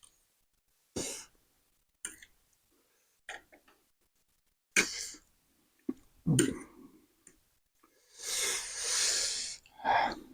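Short, separated bursts of eating and hard breathing from people eating very spicy noodles, with a longer hissing breath about eight seconds in.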